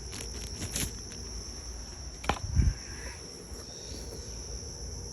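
Quiet handling of the unwrapped USB cable and packaging: a few faint ticks, then a sharp click about two seconds in and a soft thump just after. A steady high-pitched whine runs underneath.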